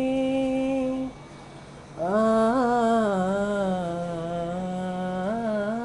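A man singing a Hindi song on drawn-out vowels. He holds one steady note, pauses briefly, then sings a long wavering note that slides gradually lower.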